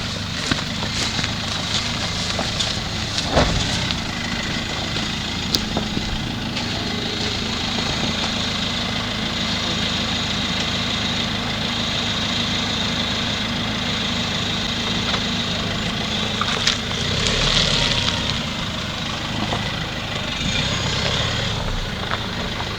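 A motor idling steadily, with a few sharp clicks and knocks over it.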